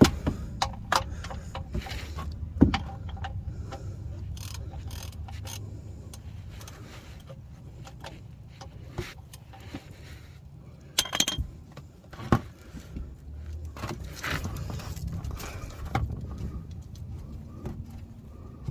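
Metal clinks and scattered knocks of a wrench being fitted to and worked on the car's oil drain plug, over a low steady rumble.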